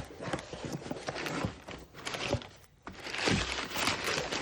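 Paper and packaging rustling and crinkling, with light knocks and taps, as a mailed parcel is opened and unwrapped.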